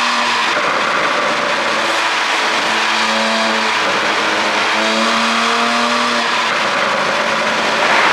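Porsche 718 Boxster GTS 4.0's flat-six running under way, a steady rushing noise with a pitched engine note that comes and goes several times.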